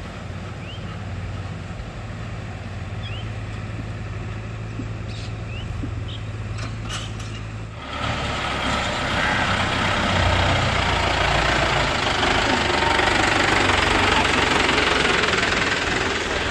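Heavy diesel engine idling steadily. About halfway through, the sound abruptly changes to a louder, rougher engine noise with a strong hiss.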